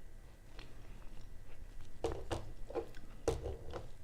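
A person chewing soft raw fish sashimi close to the microphone, with wet mouth sounds; faint at first, then a few louder chews from about halfway through.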